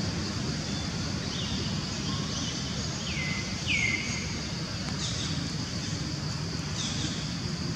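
Outdoor ambience: a steady low rumble and high hiss, with a handful of short falling chirps from birds. The two loudest chirps come about three and four seconds in.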